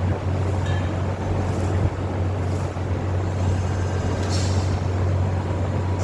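A machine running steadily with a low hum and a dense rushing noise over it.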